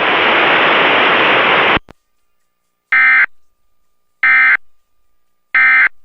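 Loud steady static hiss that cuts off a little under two seconds in, followed by three short, identical buzzy digital data bursts about 1.3 s apart. This is the EAS/SAME end-of-message code that closes an Emergency Alert System flash flood warning.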